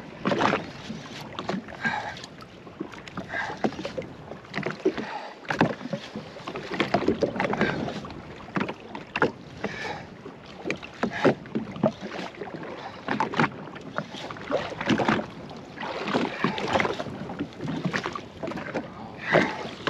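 Small waves slapping and splashing irregularly against the hull of a drifting jet ski, with wind buffeting the microphone.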